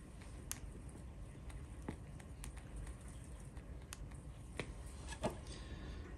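Faint, scattered handling clicks from fingers working at the trunk of a small potted maple, about six in all, over a low room hum.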